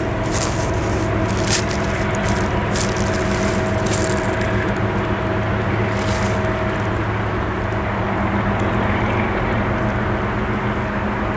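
Diesel freight locomotive engine running steadily with a low hum, under the rumble of a freight train. Sharp irregular clicks sound for about the first four seconds, then stop.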